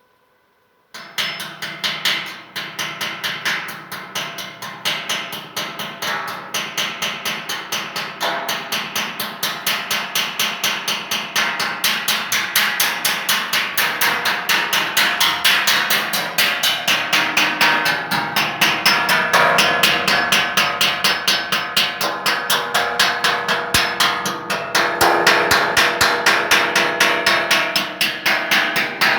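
A hammer striking metal in a fast, steady rhythm of about four to five blows a second, the metal ringing between blows, starting about a second in.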